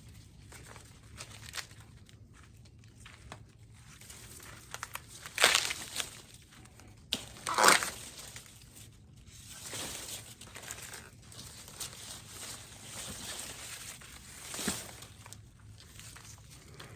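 Ears of corn being snapped off the stalks and their husks torn open, amid rustling of corn leaves and husks. There are a few sharp, loud rips, the loudest about five and a half and seven and a half seconds in, and a smaller one near the end.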